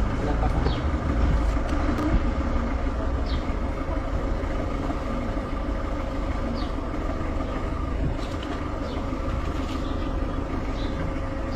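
Steady low rumble of vehicle noise, with short faint high chirps now and then.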